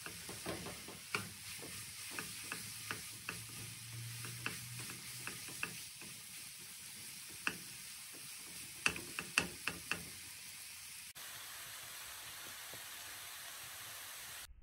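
Chicken chow mein frying in a non-stick pan with a steady sizzle, while a spatula stirs it and knocks against the pan in irregular clicks, several in quick succession near ten seconds. The knocking stops about eleven seconds in, leaving only the sizzle.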